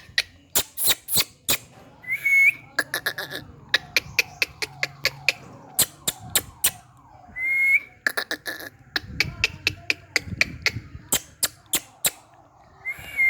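Indian ringneck parrot giving three short whistled notes, each hooking upward at the end, about five seconds apart, amid a steady run of sharp clicks.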